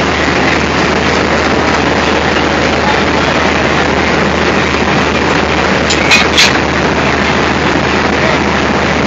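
Diesel locomotive engine running steadily at close range, a loud, even rumble with a low hum under it. Two sharp clinks stand out about six seconds in.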